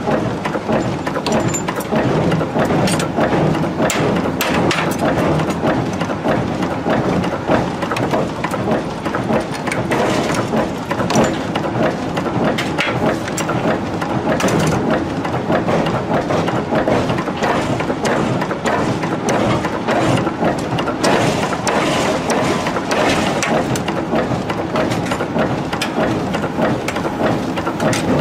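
Steady din of forging machinery: a die press working hot steel axe blanks, with a dense run of short metallic knocks over a continuous noise.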